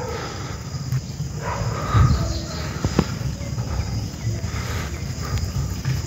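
Fingers scraping and digging in damp soil around a wild mushroom's stem to work it loose, with irregular scuffs and a few small clicks. Insects chirr steadily in the background.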